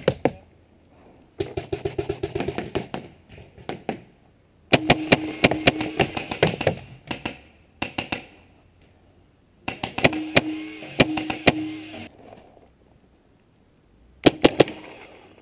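Planet Eclipse Etha paintball marker firing in rapid strings of shots, several a second. There are four strings with pauses between them, the last a short one near the end. A steady low hum runs under two of the strings.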